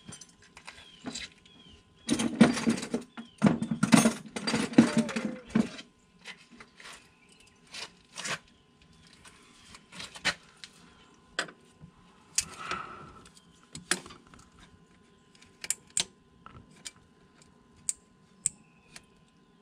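Hand tools clinking against metal: a few seconds of clatter about two seconds in, then scattered sharp clicks and taps as pliers work a hose clamp onto a rubber tube.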